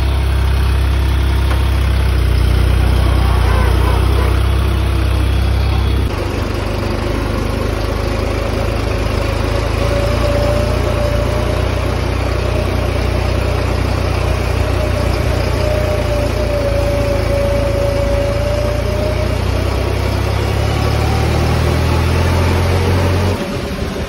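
New Holland 3630 tractor's three-cylinder diesel engine running, heard from the driver's seat; the sound changes about six seconds in as the tractor is driven along a road. A thin steady whine sounds over the engine for several seconds midway.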